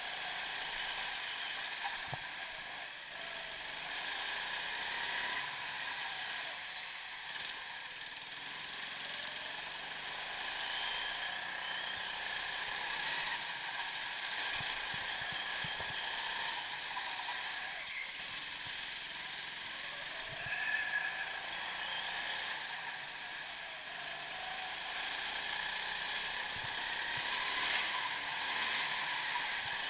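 Go-kart running at speed, heard from onboard: a steady mechanical whirring and rattling, with a brief louder knock about seven seconds in and again near the end.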